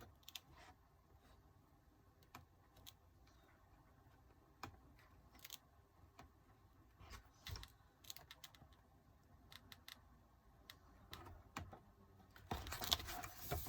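Faint, scattered clicks and paper rustles of photobook pages being handled and turned, with louder rustling near the end.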